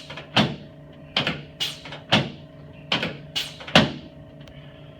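Chiropractic adjustment of the front rib cage: about seven sharp cracks in quick succession as the chiropractor thrusts on the costosternal joints, ending about four seconds in.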